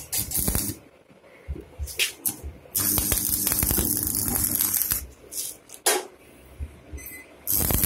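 Stick arc welding on steel grille bars: the electrode arc crackles and hisses steadily for about two seconds, with a faint hum under it. It strikes up again near the end. Before and between the welds there are scattered clicks and taps of metal.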